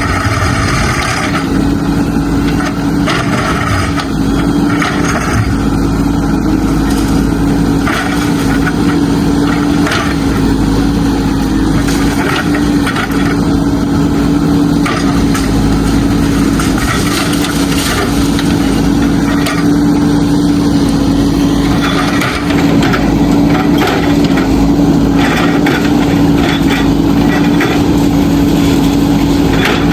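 JCB backhoe loader's diesel engine running steadily under load, with repeated cracks and knocks of broken brick and stone rubble being scooped and crushed.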